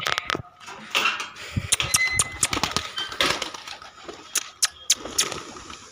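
Metal grille door of a pigeon coop being unlatched and swung open, rattling and clicking in irregular clatters, with pigeons' wings clapping as they take off.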